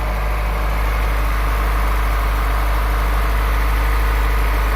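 Third-generation Honda Prelude's fuel-injected four-cylinder engine idling steadily while still cold, just restarted after a major overhaul. Its ignition timing is not yet set after a new distributor was fitted.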